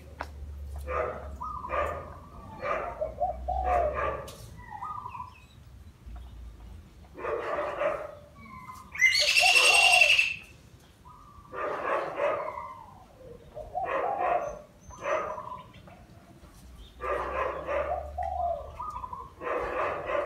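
Caged decoy dove cooing in short repeated phrases, in bouts of several calls with pauses between. About nine seconds in comes a louder, higher-pitched call lasting about a second.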